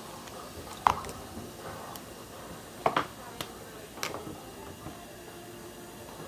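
Four sharp taps and clicks, spaced irregularly over the first four seconds, from slime-kit containers and tools being handled.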